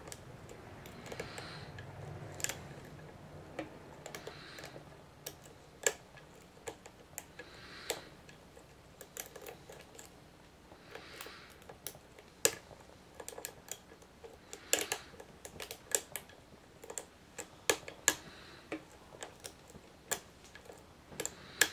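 Steel lock pick and tension wrench working in the keyway of a Master Lock No. 570 padlock: irregular sharp metallic clicks and ticks as the pick works the pins. Soft hissing swells come every few seconds under the clicks.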